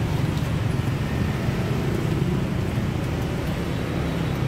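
Steady low rumble of street traffic, with no clear single event.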